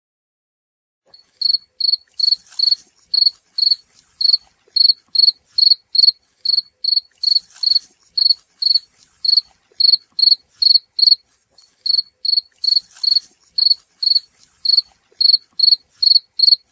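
Cricket chirping sound effect: a steady run of short, high-pitched chirps, about two and a half a second, starting about a second in with a brief pause partway through.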